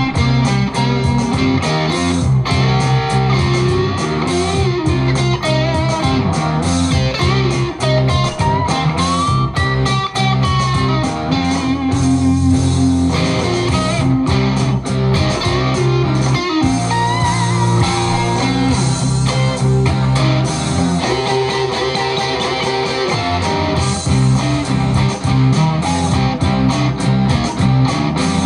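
Rock and roll instrumental led by a Stratocaster-style electric guitar, played over a steady beat.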